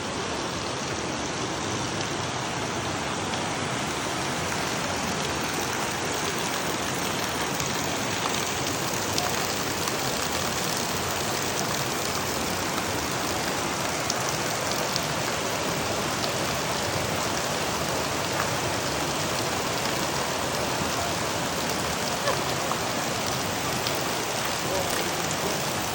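Waterfall: a steady rush of falling water, with faint splashing ticks.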